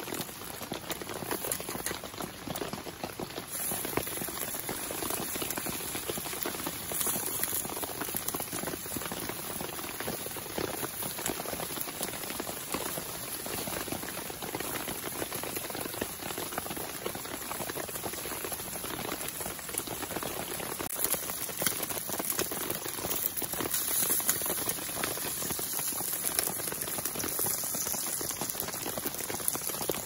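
Bacon sizzling and crackling in a small frying pan over a wood fire, a dense, steady crackle, with rain pattering around it.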